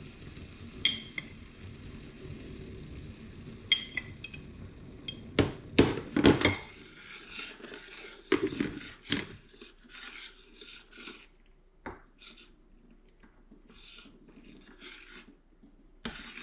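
A metal spoon clinking and scraping against a glass jar and a saucepan while coffee is spooned and mixed: a few sharp clinks, a louder cluster of them about five to six seconds in, then softer taps and scrapes.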